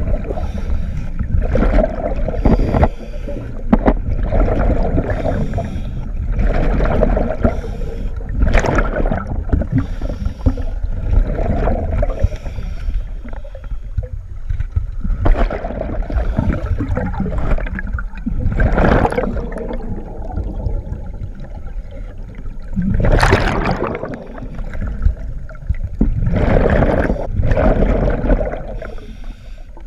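Scuba diver's breathing heard underwater: regulator hisses on each breath and gushes of exhaled bubbles, repeating every second or two at an uneven pace, over a low water rumble.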